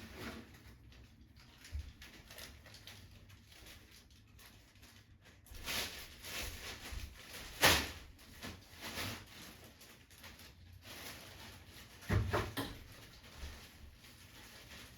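Scattered household knocks and clicks, like things being handled and set down, with one sharp knock about halfway through and a short cluster of knocks near the end.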